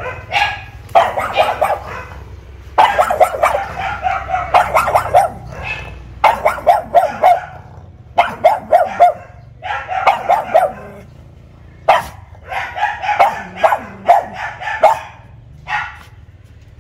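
Pug barking at a visitor who is teasing it, in quick runs of sharp yapping barks separated by short pauses; it falls quiet near the end.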